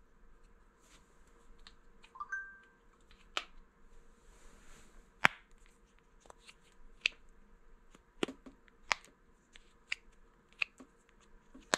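Small pop-it style bubble buttons on a plastic wireless-earbud charging case being pressed by fingers, each press giving a sharp click or pop: about a dozen at irregular intervals, the loudest about five seconds in.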